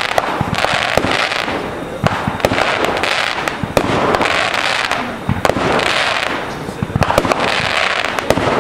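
Consumer fireworks going off without a break: many sharp bangs and pops over a hissing crackle that swells and fades in waves every second or two.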